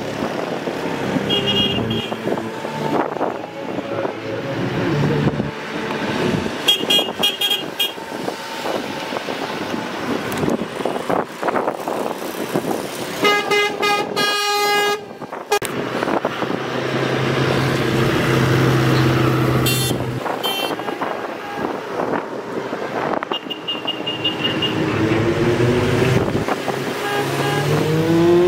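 Trucks and tractors running as they go by. A vehicle horn sounds for about two seconds around halfway, with a few shorter toots scattered through, and an engine revs up near the end.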